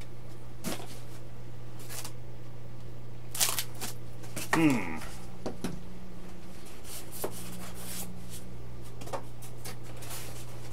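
Handling noise from a foam RC airplane and its styrofoam packaging: scattered light rustles, scrapes and clicks as hands set a wing down and rummage in the foam box. One short squeak comes about halfway through, all over a steady low hum.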